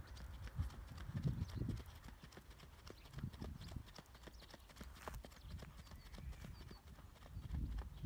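Icelandic horse's hoofbeats on an oval riding track, a quick, even run of hoof strikes, swelling louder at times.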